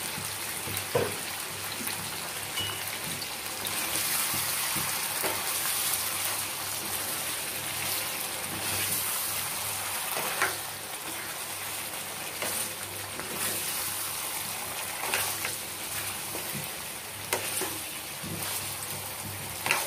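Chicken and potato curry sizzling in a nonstick pan as it is fried down in thick gravy, a steady frying hiss with a few sharp knocks and scrapes of a silicone spatula against the pan as it is stirred.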